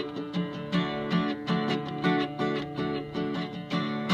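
Takamine acoustic guitar strummed in a steady rhythm, about three chord strokes a second, with the chords ringing between strokes.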